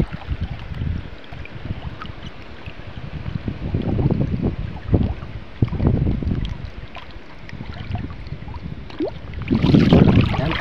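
River water splashing and swirling close to the microphone in a strong current, with wind buffeting the mic. Irregular splashes run throughout, and the splashing gets louder near the end.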